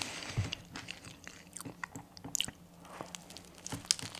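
A mouthful of crunchy breaded chicken burger being chewed close to the microphone: irregular soft crunches and wet mouth clicks.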